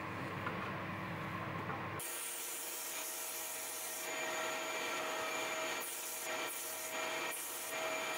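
Small bench disc sander running with a steady motor whine while the end of a thin wooden strip is pressed against the spinning disc. The sanding noise swells several times as the wood is pushed in.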